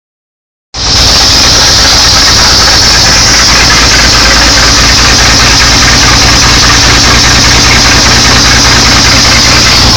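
Freshly rebuilt Hercules JXD inline-six flathead engine of a Studebaker US6 truck running steadily, loud and close; the sound cuts in abruptly under a second in.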